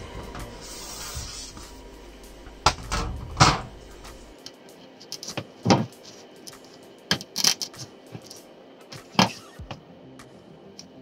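Retaining clips being pushed through speaker-grille foam into a perforated metal grille, giving several sharp clicks and knocks. Background music plays under them and ends about four seconds in.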